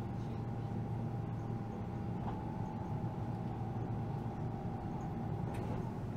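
Interior running noise of a Keihan Rakuraku limited express train at speed: a steady low rumble with a faint constant whine above it. There is a light click near the end.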